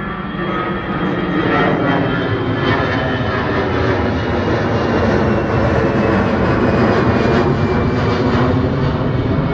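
Jet airliner passing overhead: a loud, continuous engine roar that builds and is loudest in the second half, with a high whine sliding slightly down in pitch as it goes over.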